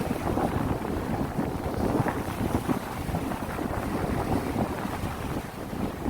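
Wind gusting over the microphone with the rumble and wash of sea waves behind it, a steady noisy roar without pauses.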